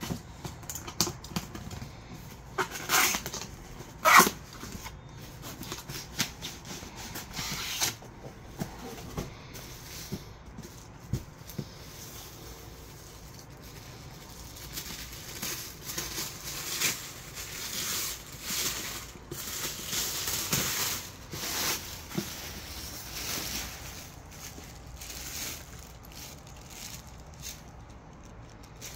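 Cardboard packaging handled and opened by hand: a run of scrapes, taps and rustles of cardboard and paper, loudest in two sharp knocks about three and four seconds in.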